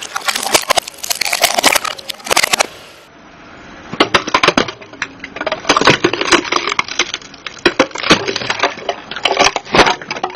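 Car tyre rolling over small owl-shaped boxes and crushing them, with a dense run of sharp cracks and crackles. After a short lull about three seconds in, a second, longer stretch of cracking follows.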